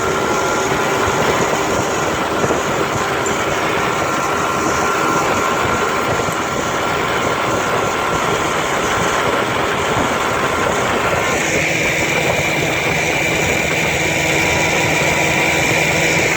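1958 Johnson FD-12 18 hp two-cylinder two-stroke outboard motor running steadily at high speed, pushing the boat at close to 22 mph, with wind on the microphone. About eleven seconds in, its note changes and a higher tone comes in.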